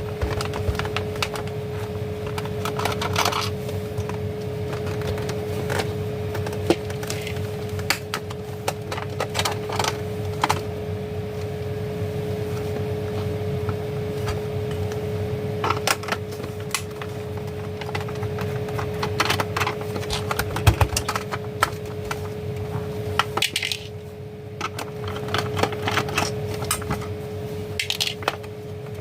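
Irregular small clicks, taps and clinks of hand tools, screws and the plastic casing of a rechargeable emergency light being handled during disassembly, over a steady hum.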